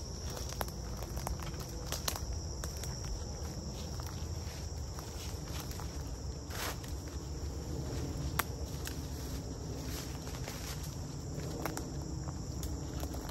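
Footsteps through dry leaf litter and brush, with scattered sharp snaps of twigs. Behind them, insects keep up a steady high drone.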